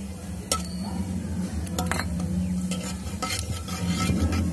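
Steel ladle stirring and scraping cumin seeds in hot oil in an aluminium kadai, the seeds sizzling lightly as they roast, with several sharp clinks of the ladle against the pan.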